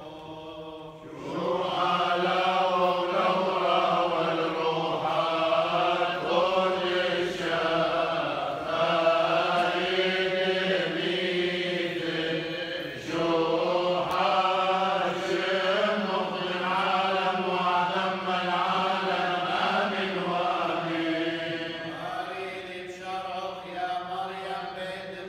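A group of men chanting Chaldean funeral prayers together in a slow, continuous liturgical chant. The chant starts about a second in and eases off near the end.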